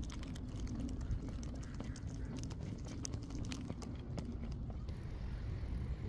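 Footsteps of a person walking in running shoes on a park path, irregular soft taps over a steady low rumble.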